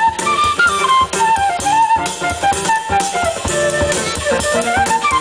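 Live band music: a stepwise wind melody, blown through a home-made instrument built around a bicycle wheel, over electric guitar and a drum kit.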